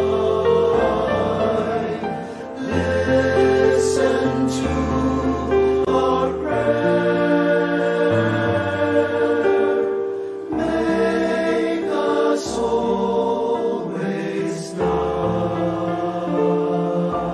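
Choir singing slow devotional hymn music over long-held low accompanying notes. The phrases break briefly about two and a half seconds in and again about ten and a half seconds in.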